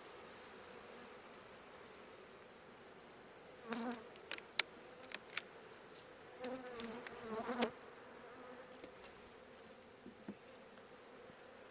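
Honeybees buzzing from a strong colony in an opened hive: a steady hum that swells around four and seven seconds in as bees fly close past. A few light clicks come as the top board is lifted off the frames.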